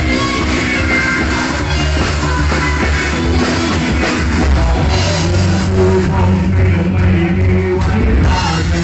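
Live rock band playing a song: drum kit, electric guitars and bass guitar together, loud and continuous.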